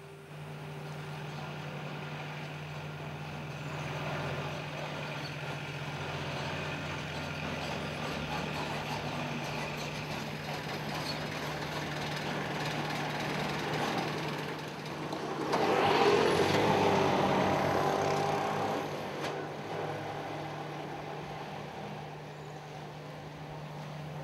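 Vehicle engine idling with a steady low hum. About two-thirds of the way through, a louder rush of vehicle noise swells up for a few seconds and then fades.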